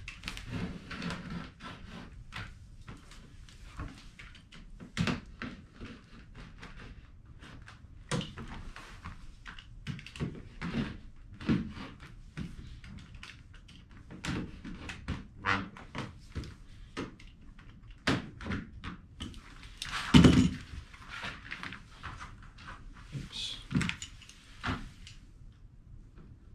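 Razor knife cutting clear plastic shelf liner along a straight edge on plywood: scattered short scrapes, taps and knocks as the knife, straight edge and liner are worked, with one much louder thump about three-quarters of the way through.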